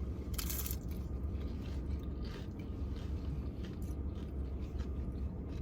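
A person chewing and crunching tortilla chips from nachos with beef, beans and cheese, with one louder crunch about half a second in, over a steady low hum.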